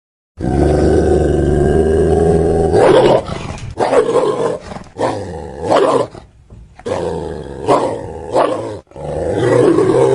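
Creature roar and growl sound effects: about half a second in, a long deep roar holds steady for over two seconds, followed by a string of shorter growling roars with brief gaps between them.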